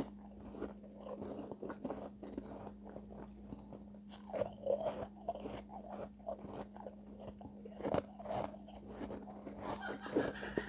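Refrozen shave ice being bitten and chewed, close-miked: dense, irregular crunching and crackling of the ice pieces between the teeth, over a steady low hum.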